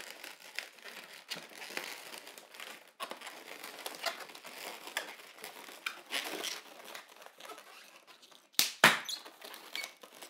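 Inflated latex modelling balloons (260 size) rubbing, squeaking and crinkling against each other as hands twist and press two balloon duck feet together. One louder, sharp rub comes near the end.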